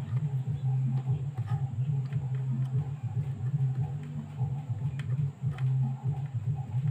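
A low, steady hum that wavers in strength, with a few faint ticks.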